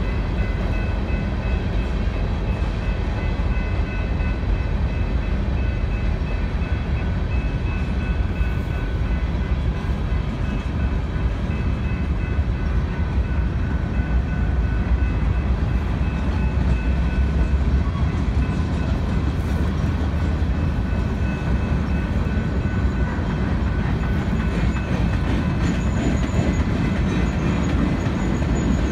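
Freight train of covered hopper cars rolling past: a steady rumble of wheels on rail, with a faint steady high ringing above it.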